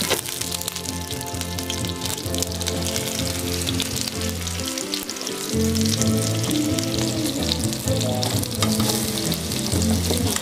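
Egg-and-flour-battered eggplant slices sizzling and crackling steadily as they shallow-fry in olive oil in a pan, with a song playing underneath.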